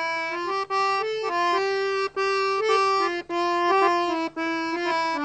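Instrumental music: a single melody line moving in short, steady notes, broken by brief pauses four times.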